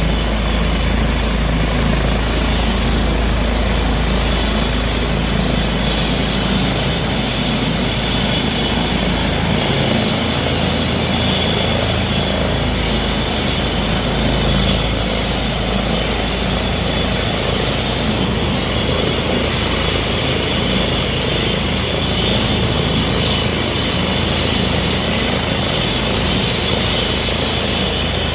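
Airbus H135 helicopter's twin turbines running and rotors turning while it sits on the ground before takeoff: a steady turbine whine over the rotor noise.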